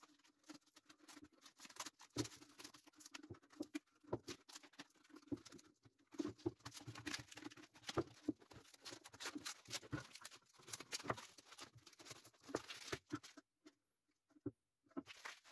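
Paint-stiffened masking paper and tape crinkling and tearing as they are peeled off a freshly spray-painted 3D-printed plastic part. Faint, irregular crackles and rustles with short pauses.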